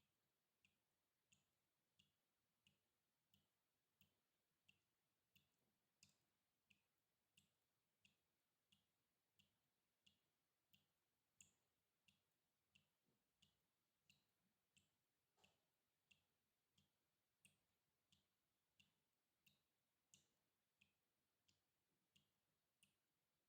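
Water dripping in a steady, hypnotic rhythm, about three drops every two seconds, each drop a short faint plink, a few of them louder than the rest.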